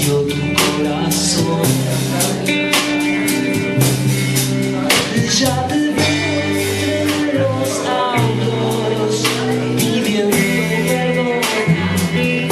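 Live band playing a rock song, guitar prominent, over sustained low notes and a steady run of sharp percussive hits.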